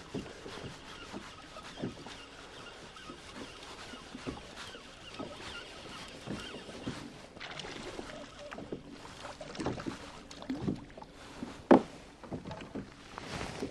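Water lapping and slapping against the hull of a Perception Pescador Pilot 12 sit-on-top kayak, with scattered light knocks and one louder knock near the end.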